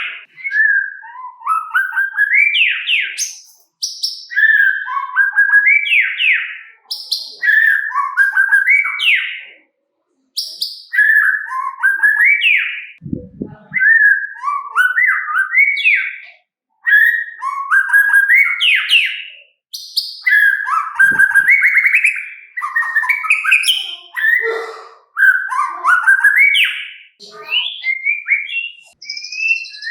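White-rumped shama (murai batu) singing: short, loud phrases of rising and falling whistled notes, repeated every second or two with brief pauses between them.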